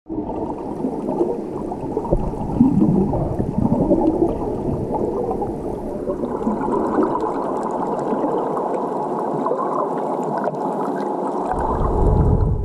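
Muffled underwater rumble and gurgling of water moving around a submerged camera housing, with faint scattered crackling ticks; a deeper surge comes in near the end.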